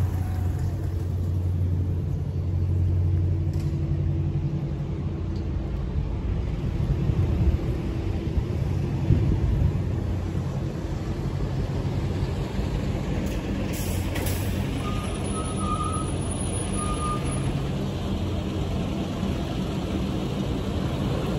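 Street traffic: vehicle engines running and passing, a steady low rumble with engine hum strongest in the first few seconds. A few short high beeps sound a little past the middle.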